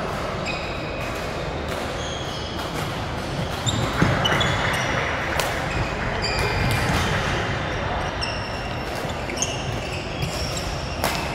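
Badminton play on a court: sharp racket strikes on the shuttlecock and many short, high squeaks of court shoes, over a background murmur of voices.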